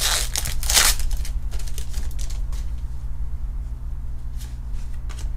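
A foil Pokémon card booster pack torn open, a loud crinkling rip in the first second, followed by softer rustles and clicks as the cards are handled. A steady low hum runs underneath.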